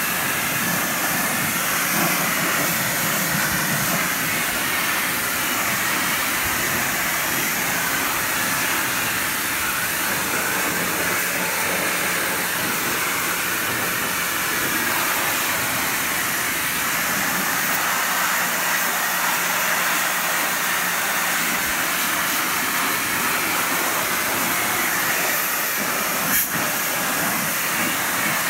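Pressure-washer lance spraying a tractor's engine bay: a steady hiss of the high-pressure water jet striking the engine and hoses. A short click comes about two seconds before the end.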